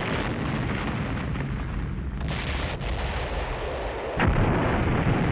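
Movie explosion sound effects: rumbling blasts from a burning industrial plant, with a new burst about two seconds in and a sharper, louder blast about four seconds in.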